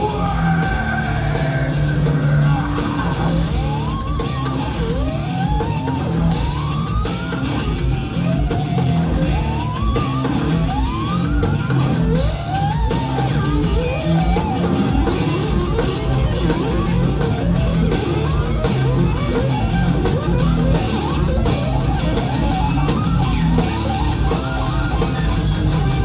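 Live rock band playing loud and steady, electric guitar over bass and drums, with the guitar making a string of rising, sliding bends that repeat every second or so.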